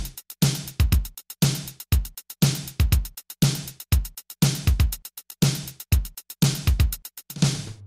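Electronic background music with a steady drum-machine beat, a kick and snare pattern repeating about once a second with quick hi-hat ticks in between. Near the end a short rising swell leads into the next section.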